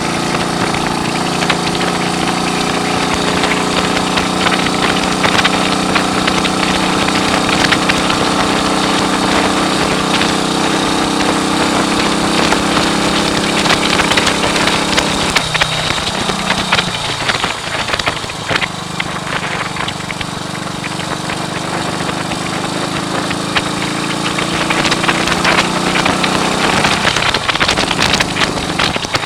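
1939 AJS Model 22 250 cc single-cylinder four-stroke motorcycle engine running on the road. Its pitch drops about halfway through, then climbs steadily again, with another brief dip near the end. Wind buffets the microphone throughout.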